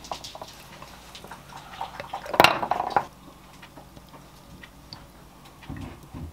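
A frozen coffee ice cube drops into an empty stemmed glass with one sharp clink about two and a half seconds in, the glass ringing briefly. Oat milk is then poured from a carton over the cube, a faint steady pour.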